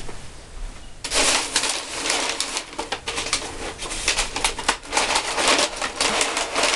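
Crumpled brown kraft packing paper crackling and rustling as hands dig through it in a cardboard shipping box. It starts about a second in and keeps on in dense crackles.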